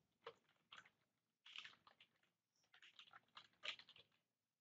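Faint, irregular keystrokes of someone typing on a computer keyboard.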